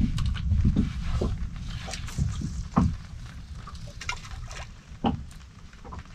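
Water lapping and slapping against the hull of a small boat, with a low rumble that eases off and scattered sharp slaps and clicks.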